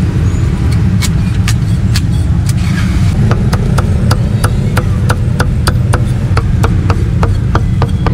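A meat cleaver chopping roast pork on a thick wooden chopping block: sharp knocks, sparse at first, then a fast even run of about four chops a second from about three seconds in. Under it is a steady low rumble of street traffic.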